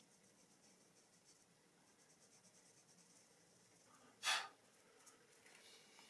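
Dry pastel stick scratching faintly on thin paper in quick small strokes, with one short, louder rasp about four seconds in.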